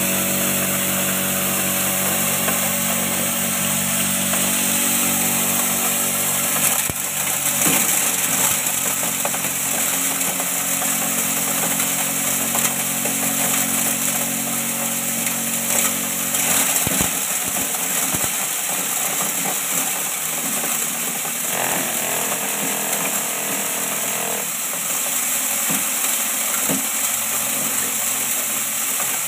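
Small chopper-grinder mill driven by a Shimizu electric motor, running while grinding corn: a steady motor hum over a dense milling hiss, its pitch shifting a few times as the load changes, with a few short knocks.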